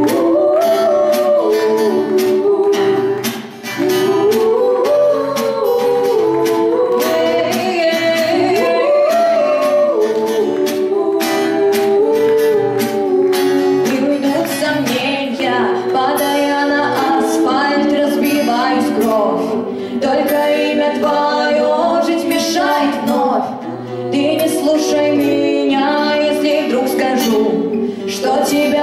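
Female voices singing a song live with acoustic guitar accompaniment, amplified through a PA.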